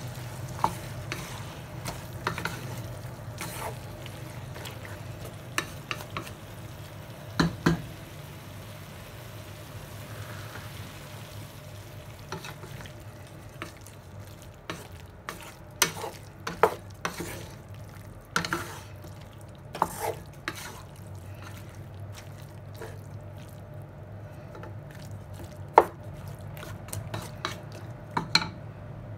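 A wooden spatula stirring bok choy and mushrooms in a metal pot, with irregular sharp knocks of the spatula against the pot over a light sizzle. The sizzle thins out about halfway, while a steady low hum continues underneath.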